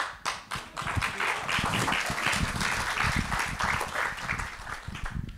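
Audience applauding: many hands clapping, swelling within the first second, holding steady, then thinning out near the end.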